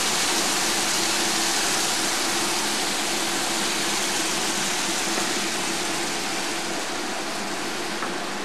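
Beef liver sizzling steadily in the pan, easing off slowly once the burner is turned off.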